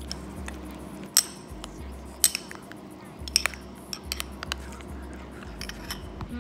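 Metal spoon stirring cereal in a glass bowl, clinking sharply against the glass several times, over background music with a pulsing bass beat.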